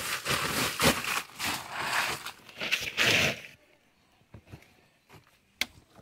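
Plastic sack rustling and crinkling as clothes are pulled out of it and handled, for about three and a half seconds, then only a few faint clicks.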